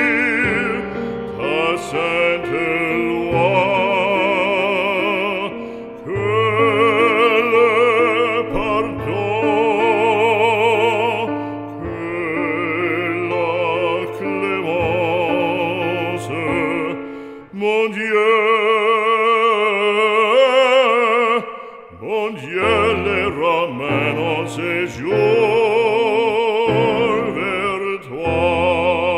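Background music: a voice singing operatically with wide vibrato over sustained instrumental accompaniment, with a couple of brief breaks between phrases.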